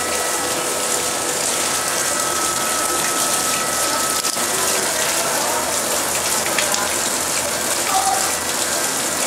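Steady rush of water pouring and splashing into a shallow pond. A faint steady whine runs under it and stops about four seconds in.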